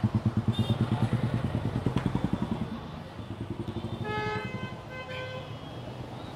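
Motorcycle engine running close by with a fast, even pulsing beat for about three seconds, then vehicle horns honking twice in passing traffic.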